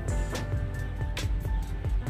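Background music with held tones and a regular beat.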